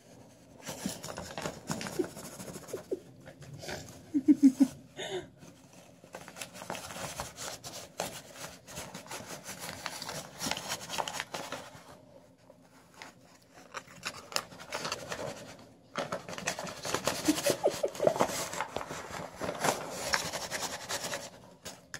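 A cat's claws snagging, crinkling and dragging a crumpled sheet of junk-mail paper across carpet, in irregular bursts. A brief, louder low sound comes about four seconds in.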